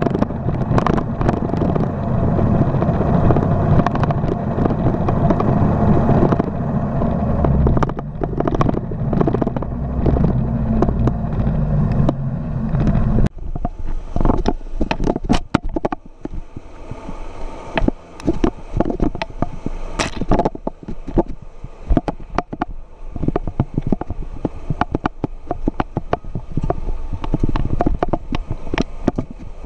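Off-road 4x4 engine running under load on a rough dirt track, with knocks and rattles from the vehicle. About halfway through the sound changes abruptly: the engine falls back to a quieter hum and many sharp clicks and knocks take over, from the tyres and body on stones and brush.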